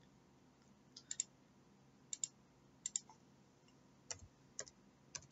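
Faint computer mouse and keyboard clicks: about six short clicks spread over a few seconds, several of them quick pairs.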